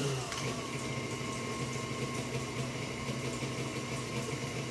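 Electric stand mixer running steadily at a constant speed, its motor giving an even hum as it mixes snack bar batter in a steel bowl.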